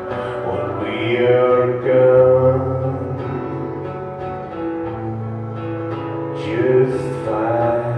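Live acoustic music: an acoustic guitar and a mandolin strumming and picking together, with a voice singing long, sliding phrases over them.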